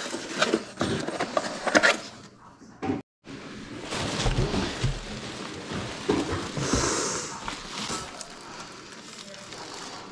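Packaging being handled as a box is unpacked: crackling and rustling of wrapping with sharp clicks and knocks, broken by a moment of dead silence about three seconds in.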